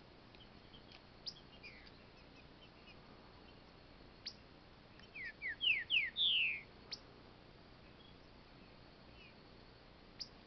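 Trinca-ferro (green-winged saltator) singing a short phrase of four or five whistled notes about five seconds in, with a few sharp single chips scattered before and after.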